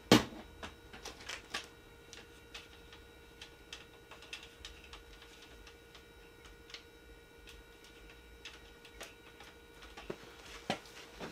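Floor jack being let down under a motorcycle: scattered light metallic clicks and ticks from the jack and its long handle, with a sharp clack at the start and another near the end.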